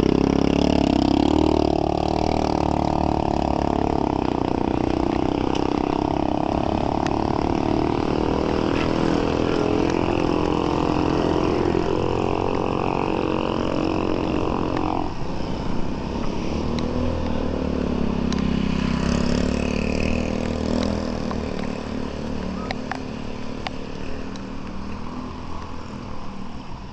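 A small engine running close by, its pitch wavering up and down with the throttle. About halfway through a lower engine note takes over, and the sound fades near the end.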